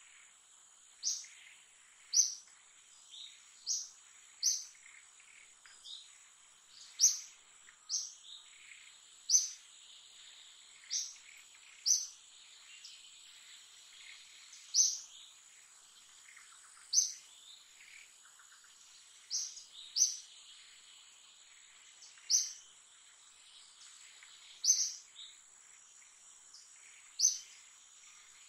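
Forest ambience: a bird giving a short, high chirp every one to two seconds, over a steady high-pitched insect drone.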